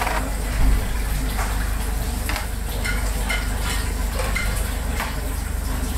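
Kitchen clatter: dishes and utensils clinking about eight times, a few ringing briefly, over a steady low hum.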